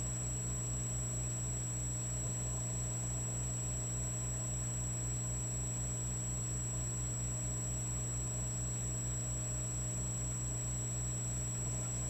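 Electric fireplace log set running: a steady electrical hum and buzz with a fast, even low throb under it and a thin, high steady whine.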